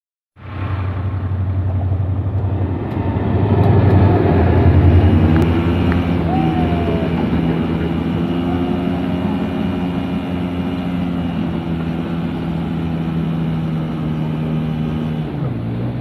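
Train in an automatic washing plant: a steady, loud mechanical drone with a deep hum and a hiss over it, a little louder a few seconds in, the hum's pitch dipping slightly near the end.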